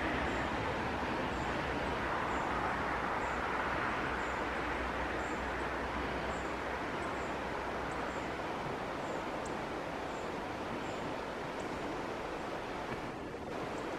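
Steady outdoor background noise, a continuous hiss-like wash with a faint high tick recurring about once a second; the deepest rumble in it fades about two-thirds of the way through.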